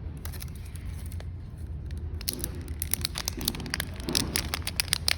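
Crackling and clicking of a new phone and its plastic packaging being handled, growing busier about two seconds in, over a steady low rumble.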